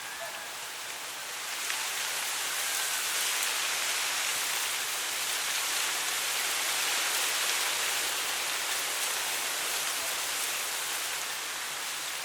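Wind blowing through tall dry grass, a steady rustling hiss that swells about a second and a half in and eases off a little near the end.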